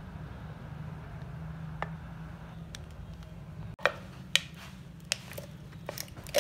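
A steady low hum with a single click, then after an abrupt cut a run of sharp, irregular clicks and crackles: a plastic bottle being cut and handled to make a drinking glass.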